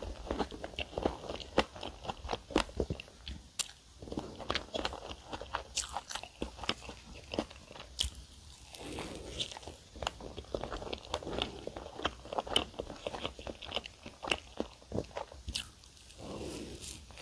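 Close-miked biting and chewing of a cream-filled flaky layered pastry: the crust crunches with many small sharp crackles between soft chews of whipped cream.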